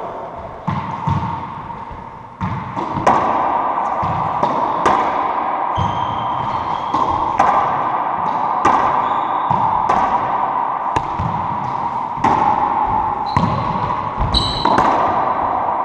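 Racquetball rally: the hollow rubber ball smacks off racquets, the walls and the hardwood floor about once a second, each hit ringing in the enclosed court, with a few short sneaker squeaks on the floor.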